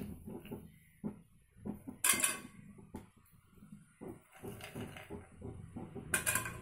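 Raw peanuts being dropped by hand into hot oil in a metal kadai, with small knocks and two sharp ringing clinks of cookware, one about two seconds in and one near the end.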